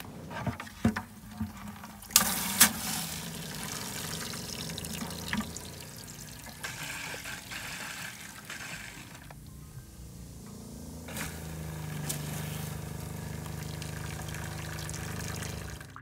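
Pink RV antifreeze spraying from an outside-shower hand sprayer into a metal bucket, the liquid splattering against the metal in a steady wash. Two sharp knocks come a little over two seconds in.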